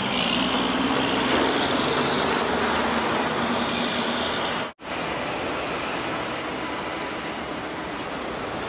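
City street traffic: cars and a truck running past, with a steady road noise. The sound drops out for an instant about halfway through.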